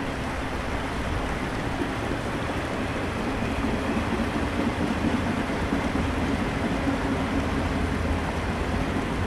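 Norfolk Southern freight train's cars rolling across a concrete bridge: a steady rumble of wheels on rail, mixed with the rush of creek water running under the arches.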